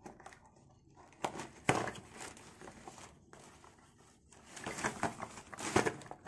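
Plastic courier mailer crinkling and rustling as a cardboard box is pulled out of it, in irregular bursts about a second in and again near the end.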